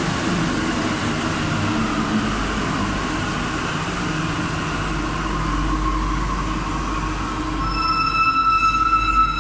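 Santiago Metro NS-16 rubber-tyred train pulling away from the platform: a steady rumble of the cars running past, with a whine that falls slightly in pitch through the middle. About eight seconds in, a steady high whine sets in.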